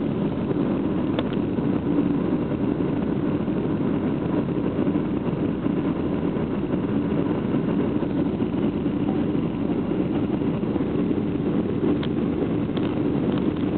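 Steady drone of an airliner cabin during descent: jet engines and rushing airflow, with a faint steady hum and a few light clicks.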